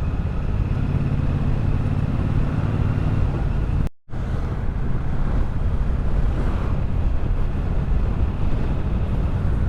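Triumph Bobber's 1200 cc parallel-twin engine running steadily, with wind hiss on the helmet microphone. The sound cuts out for a moment about four seconds in.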